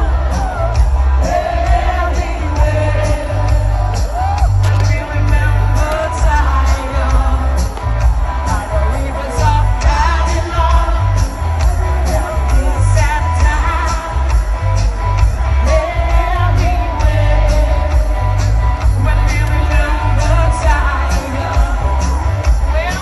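Live concert music: a singer's amplified voice over band music with a heavy, steady bass beat.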